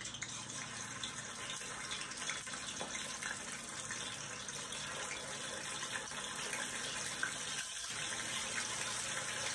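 Fish pieces sizzling steadily as they shallow-fry in hot mustard oil in a kadai.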